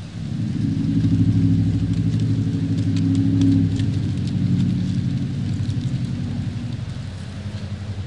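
A train passing: a low, pitched engine rumble comes in suddenly at the start, is loudest for the first few seconds, then slowly fades, over a background of wind and rustling leaves.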